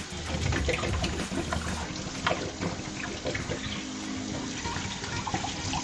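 Water from a kitchen faucet running into a stainless steel sink and splashing over a plastic water bottle as it is rinsed, with many short sharp splashes and knocks as the bottle is turned under the stream.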